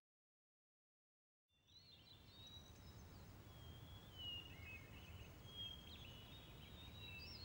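Silence for about a second and a half, then faint outdoor ambience fades in: a low steady rumble with birds chirping and calling over it.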